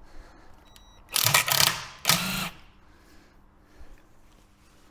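Hand tool working the last nut and bolt on the bell housing of an MGB engine and gearbox, metal on metal: two short loud bursts of mechanical clatter a little over a second in.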